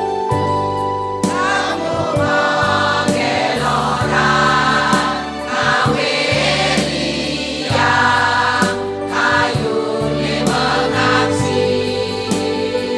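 A women's choir singing a Balinese folk song over electronic keyboard accompaniment with a steady bass line; the voices come in about a second in, after held keyboard chords.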